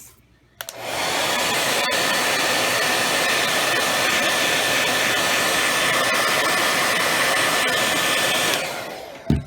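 Handheld hair dryer switched on, blowing steadily for about eight seconds with a rushing whine, then switched off. A sharp knock follows near the end.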